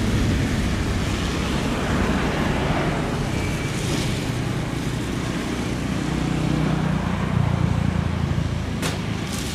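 Airbus A350-941 airliner on final approach with gear down: a steady distant jet rumble under a hiss of noise, swelling slightly about seven seconds in. Two short clicks near the end.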